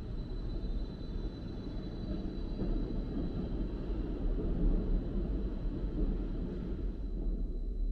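Automated mechanical parking system's machinery running as it carries a car into storage: a steady low rumble with a thin, constant high whine over it.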